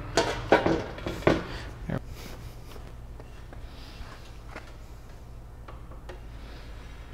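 Aluminium gangway beams knocking together as they are handled and set into place: four or five sharp clacks within the first two seconds, then only faint taps over a steady low hum.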